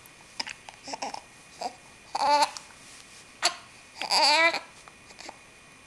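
A baby with hiccups: short, sharp hiccup sounds with brief babbling, fussy vocal sounds between them. The two longest, at about two and four seconds in, bend up and down in pitch.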